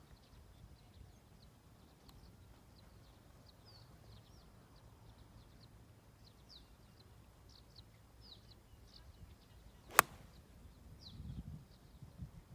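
A golf club strikes a ball once, a single sharp click about ten seconds in, while small birds chirp repeatedly in the background over a low outdoor rumble.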